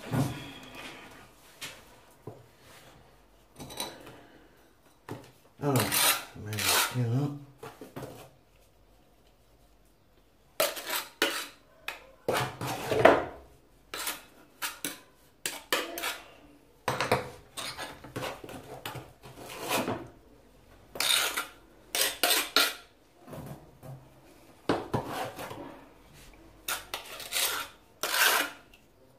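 Tile-adhesive mortar being scraped and scooped out of its container: a run of short scraping strokes, roughly one a second, with a quiet pause of about two seconds a third of the way in.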